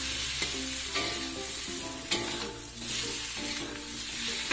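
Tofu and tempeh sizzling in hot oil as they are stir-fried in an aluminium wok, with a few clinks and scrapes of the metal spatula against the pan. Soft background music plays underneath.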